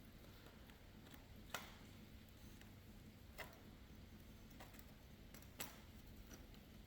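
Near silence broken by a few faint, sharp clicks of parts being handled and fitted, the clearest about a second and a half, three and a half and five and a half seconds in.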